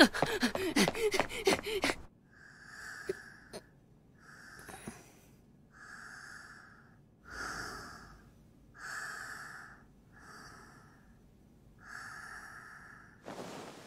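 Quick running footsteps for the first two seconds, then slow, regular breathing, one breath about every second and a half, each breath heard plainly.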